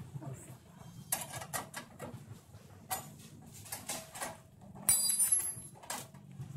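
Irregular clicks and knocks of hands working metal parts in a rice mill's equipment box, over a low steady hum, with a brief high scraping squeak about five seconds in.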